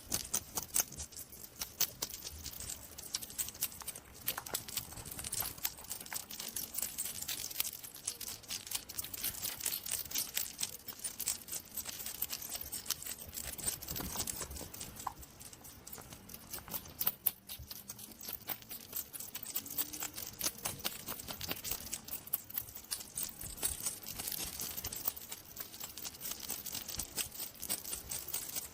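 Hedgehog rustling and clicking: a dense, irregular run of small crackly clicks.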